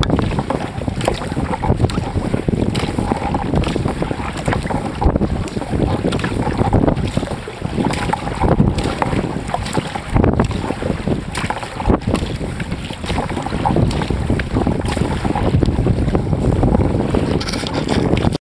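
Strong wind buffeting the microphone while a sea kayak is paddled, with the splash and swish of paddle strokes coming through every second or two.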